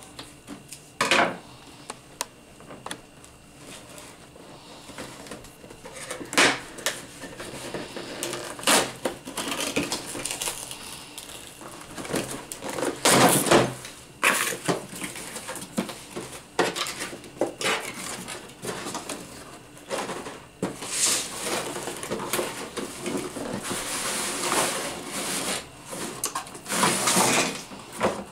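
A cardboard box being cut open with scissors and unpacked: irregular scraping, rustling and clattering of cardboard and plastic packaging, loudest about halfway through.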